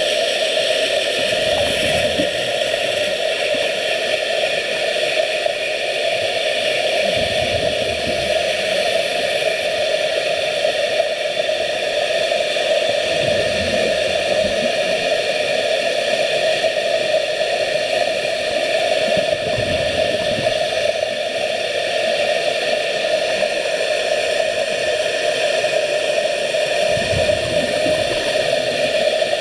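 Steady underwater hiss, broken about every six seconds by a low gurgling burst of bubbles from a scuba regulator as a diver exhales.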